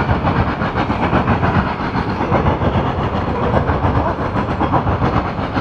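Loaded coal train's hopper cars rolling past close by: a steady, loud rumble of steel wheels on rail with rapid clacking over the rail joints.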